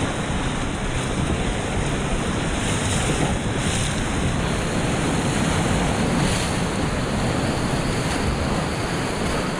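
Fast whitewater of a river running at spring high water, rushing and splashing steadily around an overturned inflatable raft.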